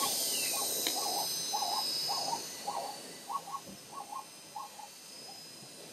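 An animal giving a series of about a dozen short hooting calls, two to three a second, which thin out and stop near the end.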